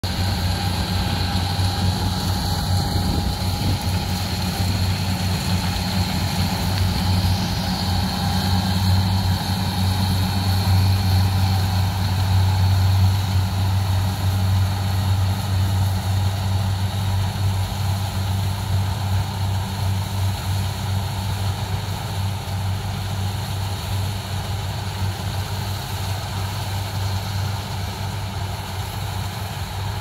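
Kubota rice combine harvesters running steadily, a deep diesel engine hum with the machinery's drone over it and a faint high whine during the first several seconds. It swells slightly around the middle and eases a little toward the end.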